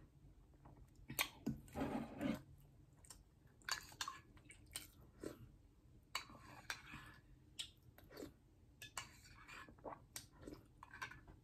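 Close-up chewing and mouth sounds of someone eating, in irregular short smacks and clicks, busiest a second or two in.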